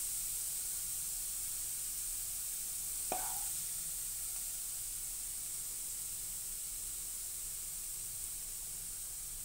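A wooden spoon knocks once against a frying pan about three seconds in, with a short ring, while scooping sautéed mushrooms. Under it runs a steady high hiss.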